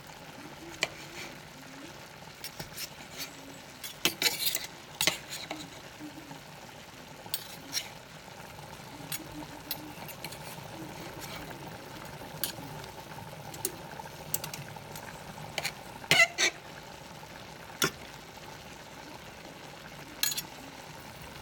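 A steel knife and fork clinking and scraping against a stainless steel skillet as chicken and vegetables are cut up in the pan, in irregular sharp clicks. Under them is a faint steady sizzle of the stir-fry cooking.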